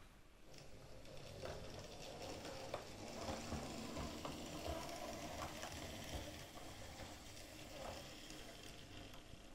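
A split-chassis Mainline J72 OO gauge model locomotive running slowly on the track, its small motor whirring with a steady rushing hiss and a few faint clicks from the wheels on the rails.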